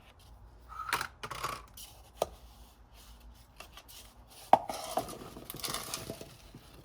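Light knocks and clatters of a container and potatoes being handled on kitchen scales, with a sharper knock a little past halfway and about a second of rustling near the end.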